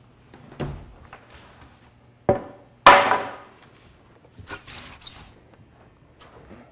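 Plywood flat-bottomed boat hull being flipped over on a workbench: a series of wooden knocks and bumps. The loudest two come close together about two and a half and three seconds in, and the second rings on briefly. Lighter knocks follow.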